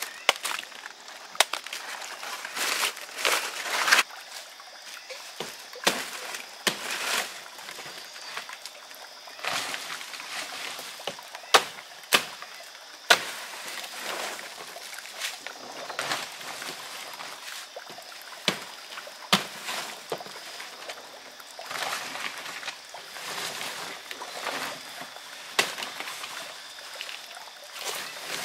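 Knife chopping and cutting into fresh, watery banana plant stalks and leaves: sharp cuts and snaps at irregular intervals, with rustling and tearing of the big leaves in between.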